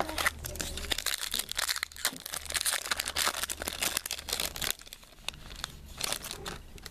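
Foil wrapper of a trading-card pack crinkling and crackling as it is pulled from the box and torn open. It is dense and loud for the first few seconds, then drops to softer scattered rustles and clicks.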